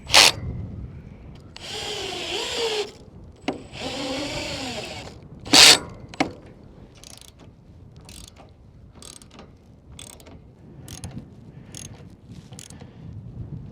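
Cordless drill driving screws into the railing panel in two runs of about a second each, its motor pitch rising and falling under load, with two loud sharp bangs in between. Afterwards a run of light clicks, about two a second.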